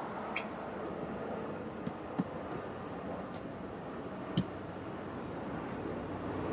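Steady background noise heard from inside a parked car, with about six short sharp clicks and taps scattered through it, the loudest about four and a half seconds in.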